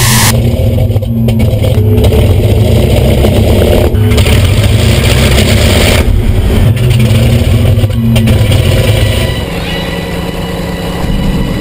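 A Hawker Sea Fury's radial piston engine running on the ground, heard from the cockpit. It gives a steady low drone, with rushing noise that swells and fades, and the engine eases off briefly near the end.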